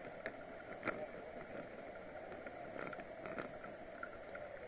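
Bicycle riding slowly on a park path: a steady rolling hum with a few sharp clicks and rattles from the bike.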